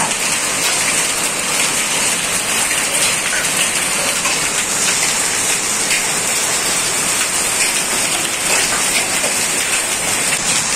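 Heavy rain mixed with hail pouring down steadily, with scattered sharp ticks of hailstones striking hard surfaces.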